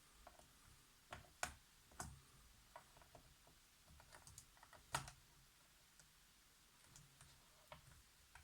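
Light, scattered plastic clicks and taps from a Dell Latitude E5420 laptop keyboard being handled and worked loose by hand. Three clicks stand out, at about one and a half, two and five seconds in.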